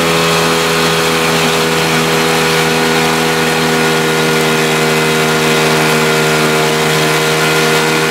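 Small Yamaha two-stroke outboard motor running steadily at cruising speed, its drone holding one pitch, over the rush of water along the hull.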